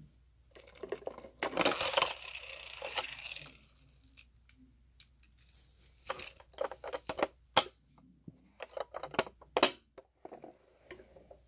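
Hard plastic of a Hess toy RV and its toy motorcycle being handled. A scraping rustle about a second and a half in lasts about two seconds as the motorcycle comes out of the RV's side compartment, then comes a scattered run of sharp plastic clicks and taps.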